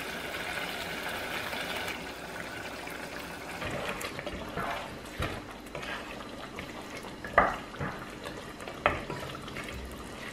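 Thick chicken curry in coconut milk being stirred in a pot with a wooden spatula: wet sloshing of the gravy, with a few knocks of the spatula against the pot in the second half.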